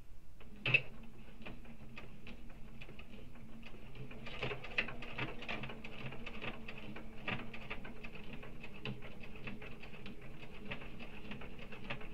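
Domestic electric sewing machine stitching steadily through layered fabric: a motor hum with the needle ticking on every stitch. A single sharp click sounds just as it starts.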